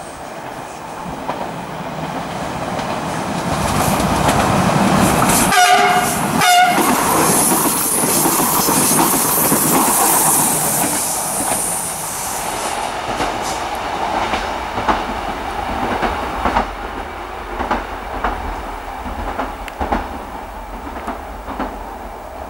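SNCF B 84500 (Alstom Régiolis) regional multiple unit approaching and passing, sounding two short horn blasts about six seconds in. Its running noise then fades away, leaving scattered clicks of wheels on the rails.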